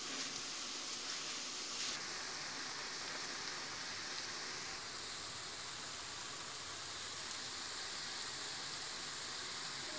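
Churro dough frying in hot oil in a pan over medium heat: a steady sizzling hiss of bubbling oil, its character shifting slightly about two and five seconds in.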